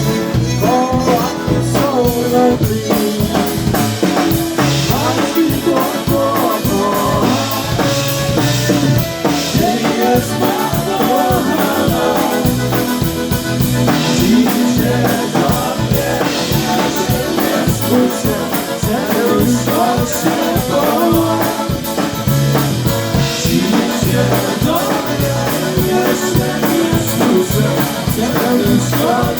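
Live polka band playing, with a drum kit keeping a steady beat under melody lines.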